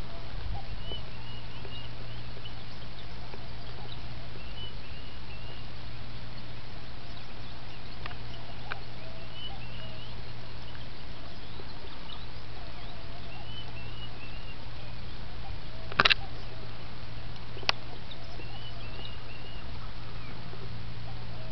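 Small birds twittering in short repeated phrases every second or two, over a steady low hum. A few faint ticks, and one sharp click about sixteen seconds in.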